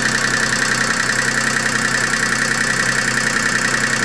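Car engine idling steadily with no load, fully warmed up, with a steady high whine over its running.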